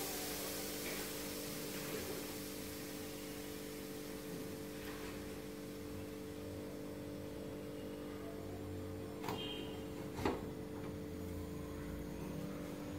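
Hiss of the last steam from an aluminium pressure cooker, fading out over the first few seconds, over a steady faint hum; about nine and ten seconds in, two short metallic clicks as the cooker's lid is unlocked and taken off.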